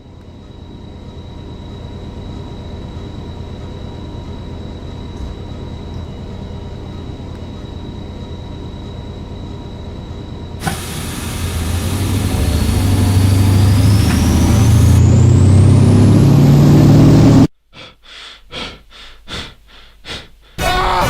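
A steady vehicle rumble fades in and grows louder. About ten seconds in, a harsher, brighter layer joins it, and a rising whine climbs near the end. It then cuts off abruptly into a quick run of short pulses.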